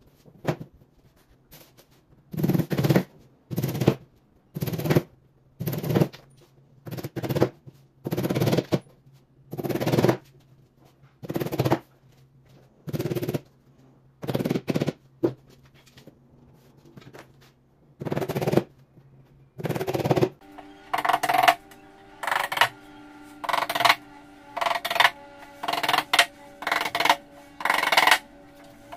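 A small hammer tapping nails into the fiberboard back panel of an IKEA Bestå cabinet, each nail driven with a quick cluster of taps about every second or so. After about two-thirds of the way in the clusters come closer together, with a steady hum underneath.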